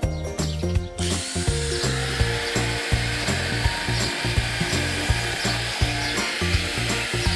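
Background music with a steady beat and bass line, over a steady whirring power tool fitted with a chainsaw bracket kit, which starts about a second in.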